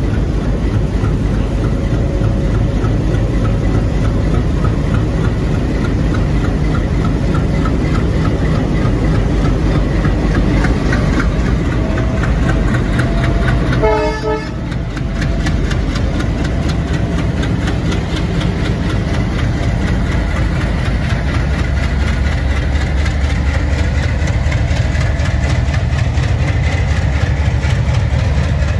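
WDG3A ALCO diesel locomotives' 16-cylinder 251 engines running loud and steady with an even throb as they pull a train away from a standstill. The sound dips briefly about halfway through.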